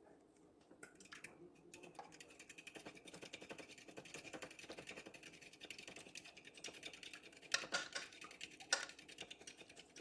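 Fast, steady clicking of kitchen utensil work, starting about a second in, with two louder knocks near the end.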